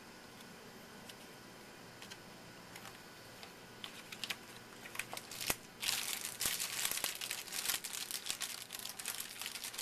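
Trading-card pack wrapper crinkling as a pack is opened and the cards are handled. A few light clicks come first, then dense crinkling sets in a little past halfway.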